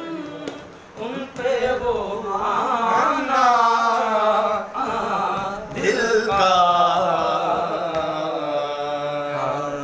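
A man singing Sufi qawwali-style, drawing out long, wavering held notes without words, in two long lines with a short break about halfway through.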